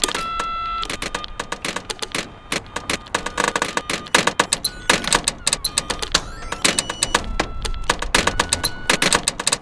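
A rhythmic collage of telephone sounds. A beep is held for about half a second at the start, followed by a dense run of sharp clicks and knocks with short beeps between them.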